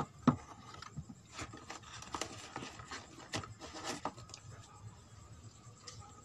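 Cardboard rubbing and scraping with scattered light knocks as a cardboard model optical drive is worked loose from a cardboard computer case. The sharpest knock comes just after the start, and the handling dies down over the last couple of seconds.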